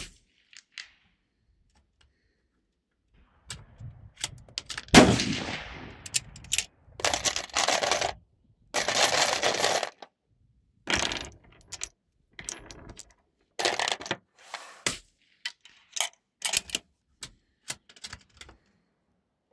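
A single rifle shot about five seconds in, echoing for over a second under the shelter roof. It is followed by a string of metallic clinks, rattles and scraping bursts as the rifle and the plastic cartridge box are handled on the bench.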